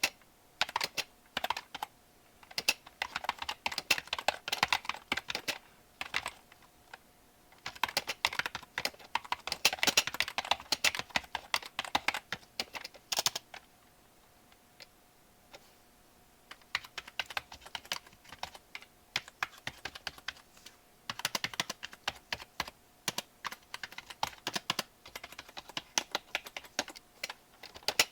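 Typing on a computer keyboard: fast runs of key clicks in bursts, broken by short pauses and one longer lull near the middle with only a few scattered keystrokes.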